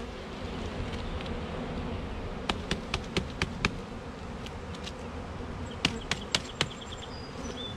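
A mass of honeybees buzzing steadily around an open hive as a package of bees is shaken in. Two quick runs of sharp raps cut through the hum, a few seconds apart, as the plastic package box is knocked to dislodge the last clump of bees.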